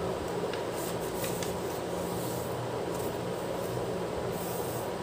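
Origami paper being creased and rubbed flat by hands, a few faint short rustles over a steady background hum.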